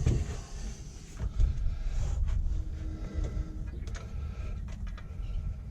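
Light metallic clinks and rubbing from an engine timing chain being fed and worked into place by hand, over a steady low rumble.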